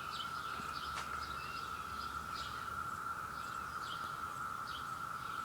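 A cicada chorus drones steadily on one pitch, with short, falling bird chirps repeating over it every half second or so.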